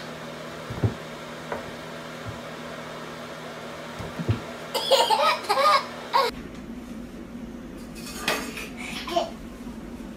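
A toddler laughing in a burst of giggles about five seconds in, with a few soft knocks before it.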